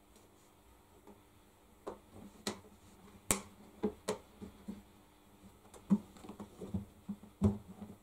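Irregular sharp clicks and taps as the thin metal retaining wire of a washing machine's rubber door seal is stretched into place around the door opening and worked along the rim by hand. They start about two seconds in, and the loudest comes about three seconds in.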